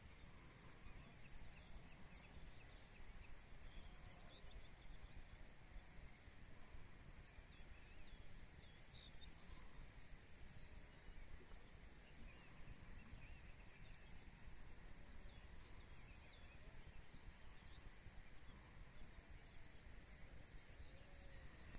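Faint marsh ambience: distant small birds chirping at scattered moments over a steady low rumble.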